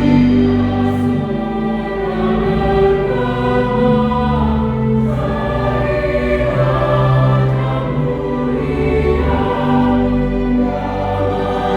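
Church choir singing a Christmas song in held, sustained chords, with low bass notes underneath.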